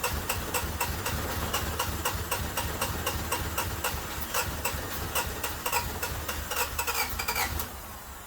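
Starter motor cranking a 1988 Honda Civic wagon's four-cylinder engine over at a quick, even beat, without the engine catching; the cranking stops near the end. The engine turns over but will not start.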